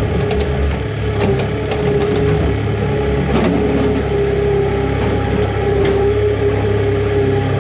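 Engine of a farm machine running steadily, with scattered knocks and crunching, as of frozen material being scraped and broken up.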